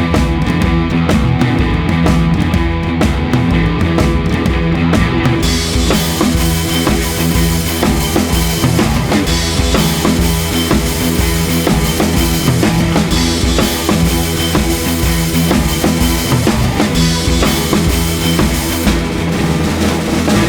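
Rock music backing track with a steady drum beat and bass; about five seconds in the sound gets fuller and brighter as more of the band comes in.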